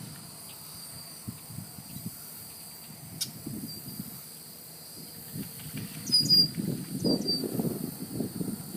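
Steady high-pitched drone of insects such as crickets, with a few brief chirps about six and seven seconds in. An irregular low rumble grows louder through the second half and becomes the loudest sound.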